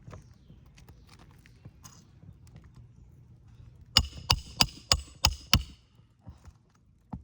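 A hammer driving a roofing nail on an asphalt shingle roof: six quick, ringing strikes about a third of a second apart, starting about four seconds in, after a few seconds of faint ticks and handling.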